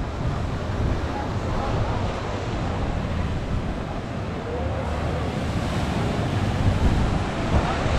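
Waves rolling and breaking in a surf wave pool, a steady wash of water, with wind buffeting the microphone.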